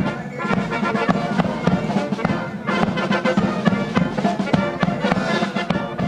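Military brass band playing a ceremonial salute, with trumpets and trombones sounding sustained chords over drum beats.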